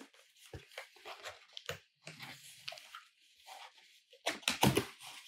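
Corrugated cardboard box being opened by hand: the lid's flaps and tabs are pried loose with scattered scrapes and clicks of cardboard. The loudest scraping comes about four seconds in, as the lid comes free.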